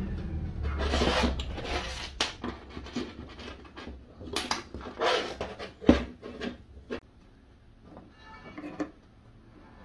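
Steel C-clamps being fitted over knife handle scales and their screws turned down: a run of metallic clicks, knocks and scrapes, with the sharpest knock about six seconds in. The handling gets lighter and quieter after about seven seconds.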